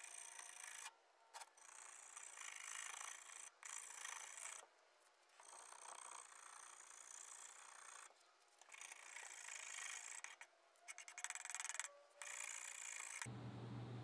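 A steel scraper blade scraping softened cosmoline off a wooden rifle stock in about seven long, rasping strokes with short pauses between them. Near the end the scraping stops and a steady low hum takes over.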